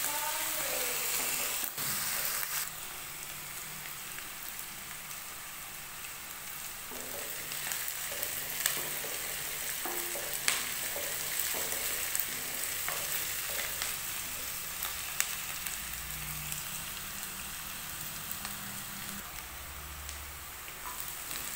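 Chopped onions sizzling in hot mustard oil in a kadai, a steady frying hiss, with a wooden spatula stirring them and clicking against the pan now and then.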